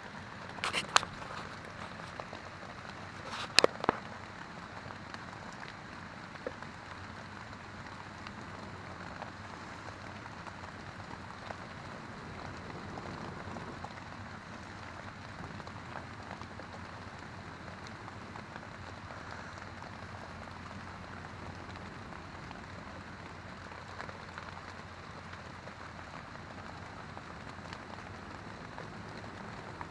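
Steady rain falling on a tent, with a few sharp knocks in two quick clusters within the first four seconds.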